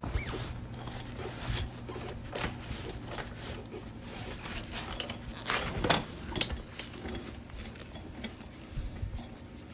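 Hawk 250cc motorcycle's rear wheel being wiggled out of the swingarm by hand: scattered metallic clicks, knocks and rubbing as the wheel, chain and rear sprocket shift against each other. The chain on the sprocket keeps the wheel from sliding free.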